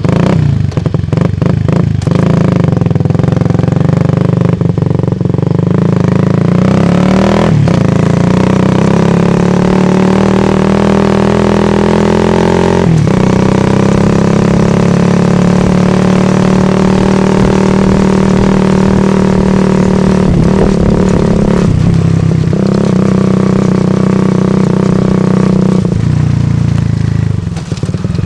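Shineray Phoenix 50cc motorcycle with an original Fortuna sport exhaust, muffler baffle left in, heard close to the tailpipe while riding. The small single-cylinder engine note rises in pitch through runs of acceleration, with several short dips where the throttle is eased between them.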